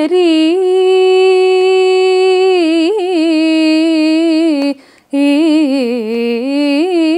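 A woman singing unaccompanied, a Carnatic composition in raga Kambhoji: a long held note on the last syllable of 'sundari', a short breath about two-thirds of the way through, then a phrase of quick wavering ornaments rising into another held note.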